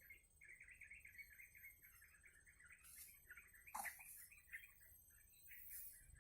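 Faint bird call: a rapid chattering trill of short, even notes, about seven a second, with one louder sharp downward note a little before four seconds in.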